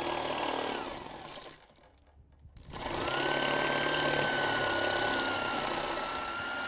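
Corded hammer drill with a masonry bit drilling into concrete. It runs, winds down and stops about a second in, then spins back up after a short pause and keeps drilling steadily.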